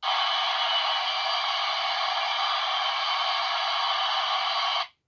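Steady static-like hiss played through the small speaker of a Knight Rider KITT model car's sound module, one of its sound effects set off by a switch. It cuts in abruptly and cuts off abruptly after about five seconds.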